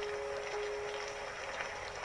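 Steady rain with scattered drop ticks, under soft held music notes.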